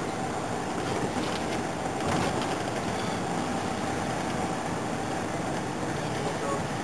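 Steady road and engine noise of a car driving, heard from inside the cabin, with a few faint ticks about a second or two in.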